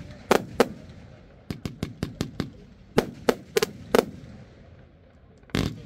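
Lesli 'Smoke Elephant' compound fireworks cake firing: sharp bangs and cracks of its shots and bursts. There is a quick run of about seven cracks about a second and a half in, then four louder bangs about a third of a second apart, and another bang near the end.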